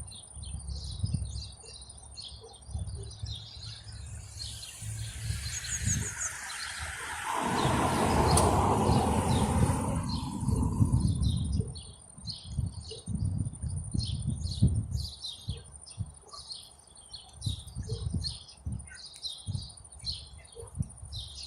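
Small birds chirping again and again. Midway, a louder rushing noise swells and fades over several seconds.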